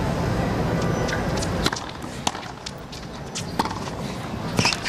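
Stadium crowd murmur between points, with several sharp knocks of a tennis ball on the hard court, the loudest near the end.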